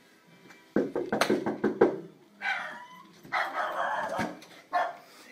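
A dog whining and barking in short bursts, after a clatter of knocks about a second in.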